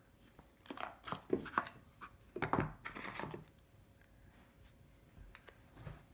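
Hands lifting an iPhone X out of its cardboard box tray: a cluster of short scrapes, rustles and light taps in the first half, then quiet handling.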